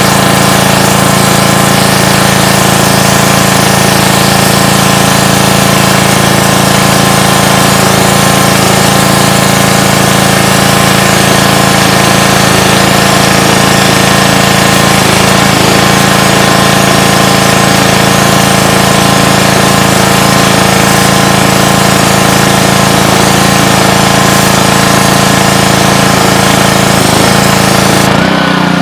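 Gas-engine pressure washer running steadily under load, its wand with a sandblasting attachment spraying water and sand in a loud, continuous hiss. The spray hiss breaks off near the end.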